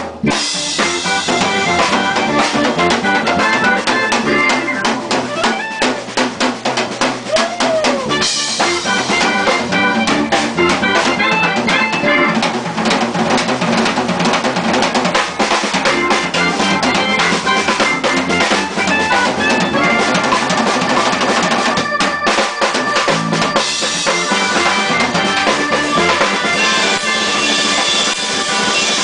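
Live jazz-fusion band playing: a drum kit with busy snare, rimshot, bass-drum and cymbal strokes drives the tune under electric bass and a woodwind lead.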